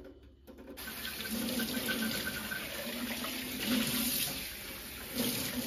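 Kitchen tap running into a sink, a steady rush of water starting about a second in, after a few light knocks.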